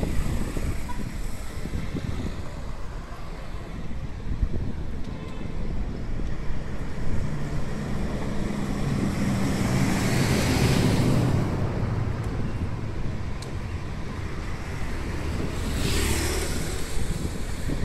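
Wind noise rumbling on the microphone over street traffic, with a car passing about ten seconds in and another near the end.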